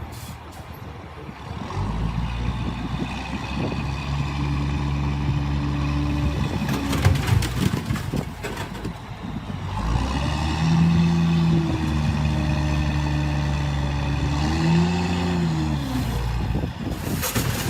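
A heavy vehicle's engine running under load in two long spells, with a few knocks between them; near the end its pitch rises and falls as it revs.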